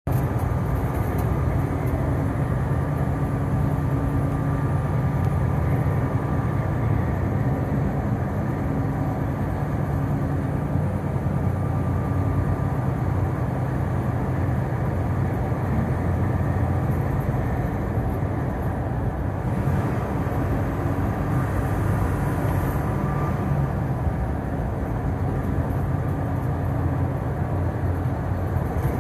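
Freightliner semi truck's diesel engine droning steadily at highway cruise inside the cab, mixed with constant tyre and road noise at about 53 mph.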